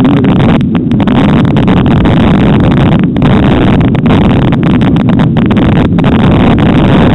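Loud, steady rumbling noise from riding along a snowy forest trail, with wind buffeting the microphone of the camera carried by the rider.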